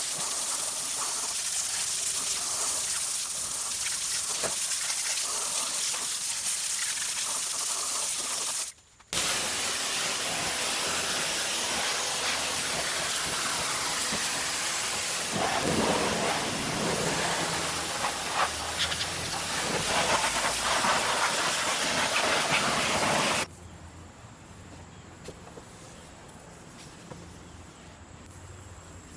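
Pressure washer jet spraying a wheel and tire: a loud, steady hiss with a short break about nine seconds in that cuts off abruptly about 23 seconds in, leaving only quiet background.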